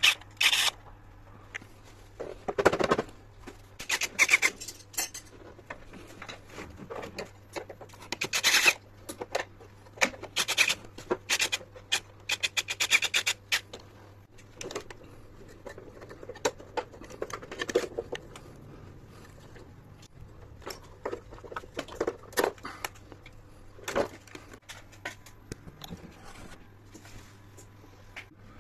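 Irregular metallic clinks, clicks and rattles of tools and parts being handled while an air conditioner's blower is changed, over a faint steady low hum.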